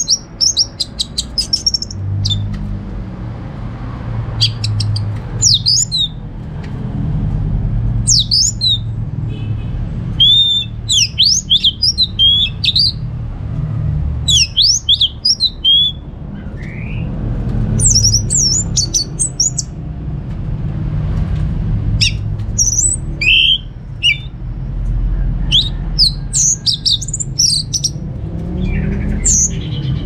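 Orange-headed thrush singing: short, varied phrases of quick high whistles and chattering notes, a new phrase every couple of seconds, over a steady low background rumble.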